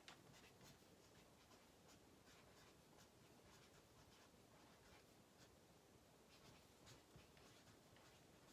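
Faint scratching strokes of a marker writing on chart paper taped to a wall, coming in short clusters.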